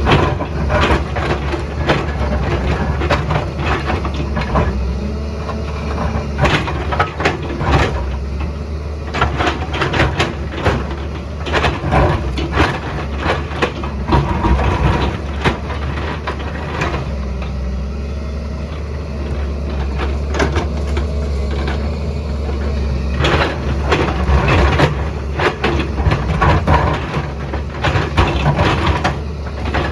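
Excavator's diesel engine running steadily under load, with frequent irregular knocks and scrapes as the bucket works through rock and soil.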